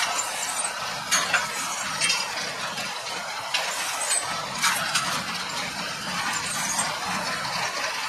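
Small square hay baling rig working: a Fendt 720 Vario tractor pulling a Kayhan Ertugrul KE520 small square baler and a Bale Baron 4245T bale bundler. The machinery gives a steady mechanical clatter with sharp metallic clinks and knocks, irregularly about once a second.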